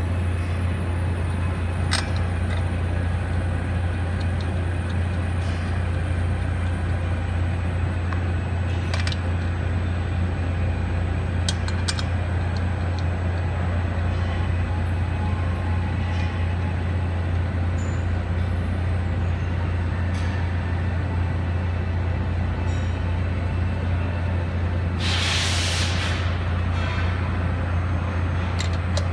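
Steady low machine hum in a workshop, with scattered light metal clinks of parts and tools as a pump adapter is fitted to an electric motor, and a hiss lasting about a second near the end.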